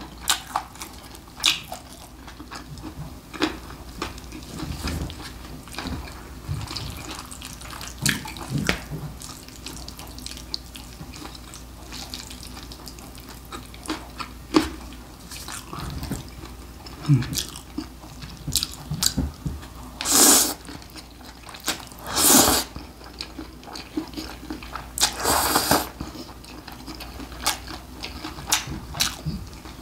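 Close-miked eating of spicy mixed noodles and sliced pork trotters: wet chewing and small clicks of metal chopsticks against the bowl, with three louder slurps of noodles about two-thirds of the way through.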